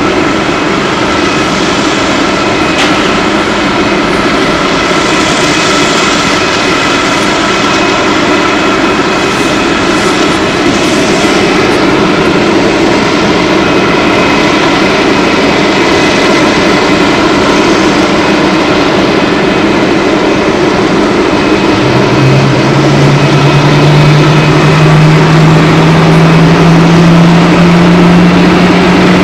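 Boeing 747-400 freighter's jet engines running on the ground: a steady whine made of several tones over a roar. About 22 seconds in, a deep hum comes in and climbs slowly in pitch, growing louder, as an engine spools up during its start.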